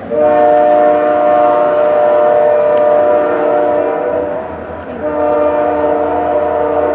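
Diesel locomotive air horn sounding a loud multi-note chord in two long blasts, the first about four seconds long and the second starting about five seconds in.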